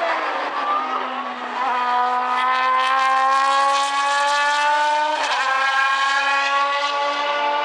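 Toyota Prius GT300 race car engine accelerating, its pitch climbing steadily through the gears with quick upshifts about two seconds and five seconds in.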